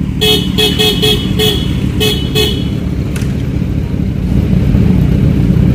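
Motorcycle engine idling with a steady low rumble. A quick run of about seven short horn toots comes in the first two and a half seconds, then the engine runs on alone, a little louder near the end.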